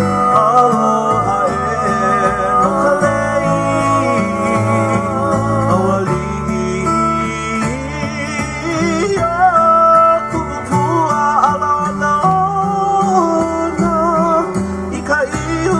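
Hawaiian song accompanying a hula dance: a singing voice with vibrato over plucked guitar.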